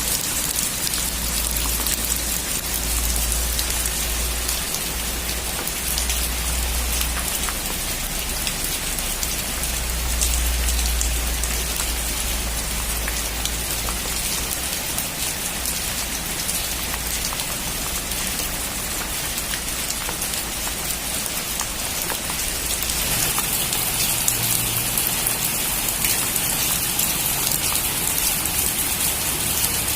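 Heavy rain pattering steadily on a metal roof, a dense hiss of many fine drop impacts. A low rumble underneath drops away about three-quarters of the way through.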